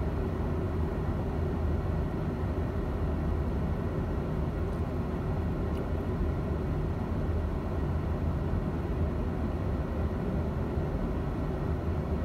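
A car's steady low rumble heard from inside the cabin.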